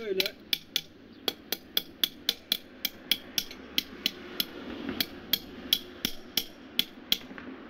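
Hammer striking steel wedge anchors through a steel pole base plate, a quick even run of sharp metallic taps, about four a second, stopping near the end. The anchors are being driven into the paving a little at a time, each in turn.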